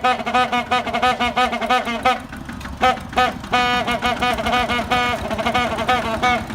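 Truck-style horn on a Kubota tractor sounded in quick short toots, about five a second, with one longer blast a little past halfway, over the tractor's engine running.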